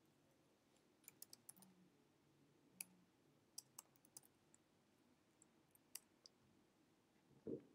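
Faint keystrokes on a computer keyboard: a quick run of clicks about a second in, then single clicks every half second or so. A short low sound comes near the end.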